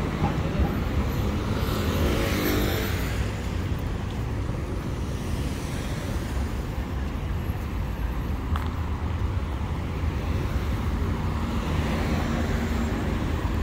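City road traffic: cars driving along a busy multi-lane street over a steady low rumble, with one vehicle passing close about two seconds in and another near the end.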